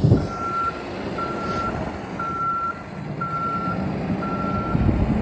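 Vehicle backup alarm beeping at an even pace, about one half-second beep each second, over a low rumble of engine and wind.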